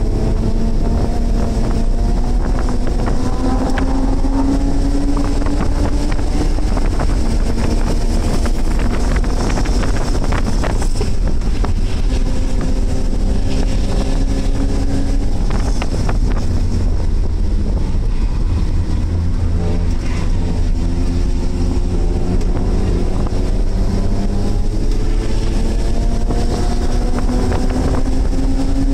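BMW track car's engine heard from inside the cabin under hard driving: its note climbs steadily with revs, drops back at gear changes or braking, then climbs again, over constant wind and road noise.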